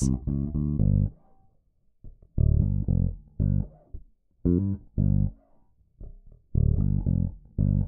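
Music interlude: a plucked bass guitar line of short, separate low notes in phrases, with brief pauses between them.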